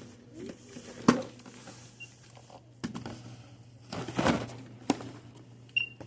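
Checkout counter handling noises: scattered knocks, clicks and rustles as packaged items are moved and rung up, with a short high beep near the end.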